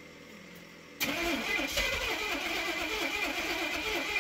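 A vehicle's engine, sitting unused for about a year, being started and running, coming in suddenly about a second in and lasting about three seconds.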